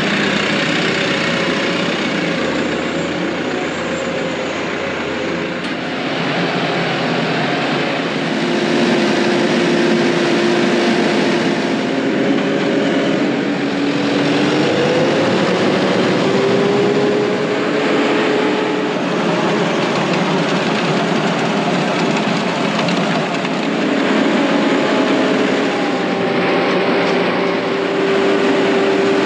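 New Holland T5.120 tractor's diesel engine running steadily while it pulls a manure spreader across a field; its pitch steps up a little about halfway through.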